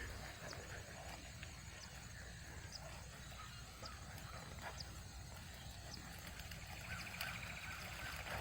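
Faint outdoor ambience: a steady low rumble of wind on the microphone, with scattered faint short high chirps and, about seven seconds in, a brief rapid run of faint ticks.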